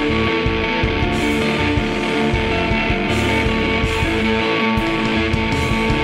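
Instrumental rock music with guitar.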